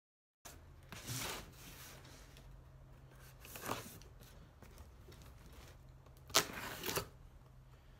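Cardboard box being opened: packing tape slit with a knife and the box and its flaps handled, in scratchy rustles. Two sharp, louder scrapes come a little after six seconds and again near seven.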